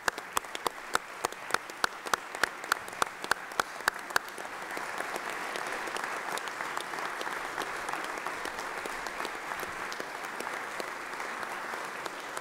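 Crowd applauding. For the first four seconds, one nearby clapper's sharp claps, about three a second, stand out; then the applause thickens into a dense, steady clapping that eases a little near the end.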